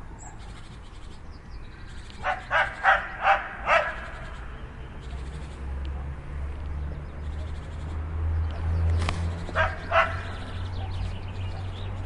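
Dog barking in short, fairly high yapping barks: a quick run of five about two seconds in, then two more near the end, over a steady low rumble.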